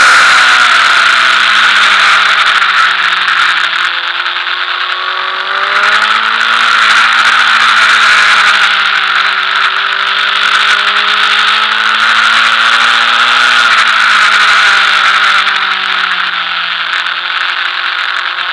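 Sport motorcycle engine running hard on track, its note dropping at first, rising again a few seconds in and holding, then dipping and picking up near the end. Loud wind rush over the fairing and windscreen runs underneath.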